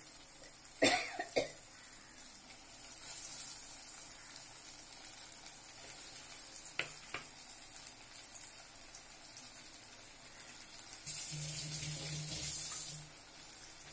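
Spice-and-flour-coated colocasia (taro root) pieces sizzling as they shallow-fry in hot oil in a steel kadai. There is a sharp knock about a second in and two light clicks around seven seconds, and the sizzle swells near the end.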